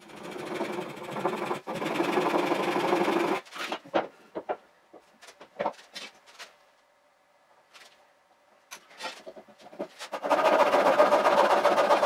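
Handsaw cutting wood in fast, sped-up strokes for about three seconds. Then come scattered knocks and clatter of wood and tools being handled on the bench. The sawing starts again about ten seconds in.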